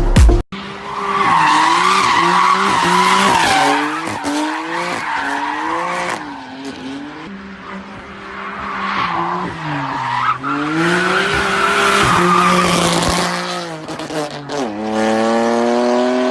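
A BMW M car's engine revving up and down under hard driving, its tyres squealing in a long skid. Near the end the engine pulls up through the revs in one rising sweep.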